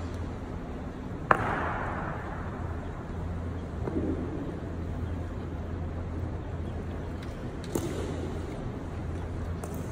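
Sharp strike from the honour guards' drill on the marble floor, a boot heel or rifle butt, cracking loudly about a second in and echoing through the stone hall. A second, softer strike comes near the end, over a steady low hum.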